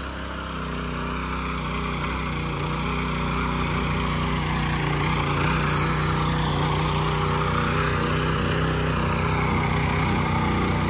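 Small engine of a walk-behind motor hoe (rotary tiller) running steadily under load as its tines churn the soil, growing louder over the first few seconds.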